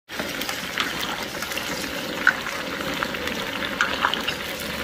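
Chicken pieces deep-frying in hot oil in a wok: a steady sizzle with scattered sharp pops and crackles.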